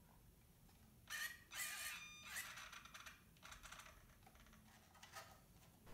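Faint small clicks and scrapes from the knobs of a hand-held RC transmitter being turned, with a brief faint high whine about a second in.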